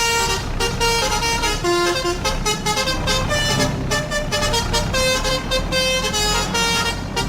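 A tune played on steady, multi-tone horn notes that change from note to note over a steady beat. It starts and stops abruptly.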